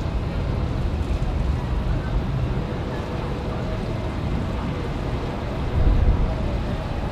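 Jet airliner engines rumbling steadily with a faint held whine, and wind buffeting the microphone, loudest in a gust about six seconds in.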